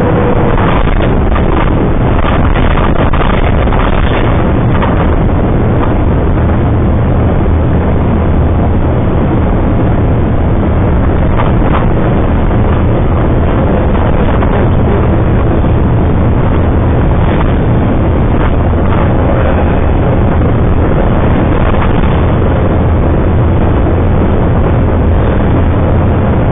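Loud, steady running noise of a truck at highway speed, about 90–100 km/h: engine drone, road and wind noise mixed together, picked up by a dashcam microphone.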